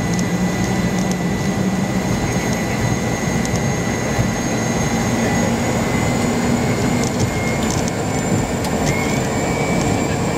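Cessna 208 Caravan's PT6A turboprop engine and propeller running loud, heard from inside the cabin on the runway ground roll. A high whine over the steady noise rises a little in pitch in the second half.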